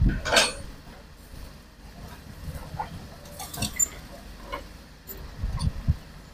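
Hitachi hydraulic excavator working at a distance, its bucket scraping soil along the top of an earth wall: a faint low engine hum under scattered knocks and rattles, with a brief louder low rumble shortly before the end.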